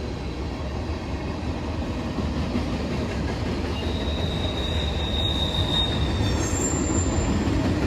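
CSX freight cars rolling steadily past, the wheels and trucks giving a continuous rumble. About halfway through a high-pitched wheel squeal sets in, then shifts to a higher squeal near the end.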